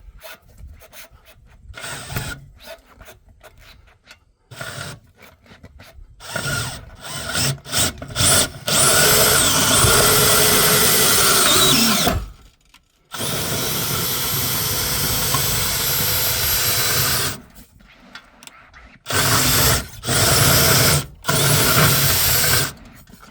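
An electric motor driving a camper's jack runs in several bursts, spinning up and winding down each time, with two long runs followed by short ones. The jack is being pressed down onto a deflated ATV tire's sidewall beside the rim to break the bead.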